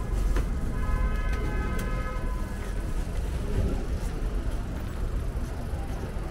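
City street traffic heard while riding a bicycle, with a steady low rumble throughout. About a second in, a high tone sounds and holds for roughly two seconds, then stops.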